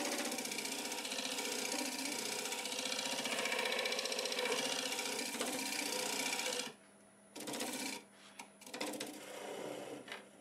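Negative rake scraper cutting the inside wall of a spinning wet green cherry bowl on a wood lathe: a steady rasping scrape with a fast buzzing chatter. It stops about seven seconds in, followed by a few shorter scrapes.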